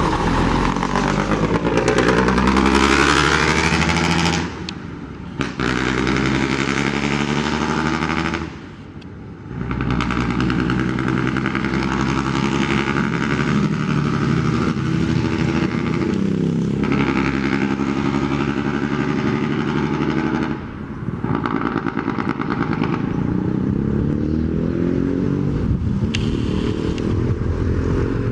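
Old FNM truck's diesel engine revved hard and held at high revs over and over. The pitch climbs and falls, with brief drops back toward idle about four, nine and twenty seconds in.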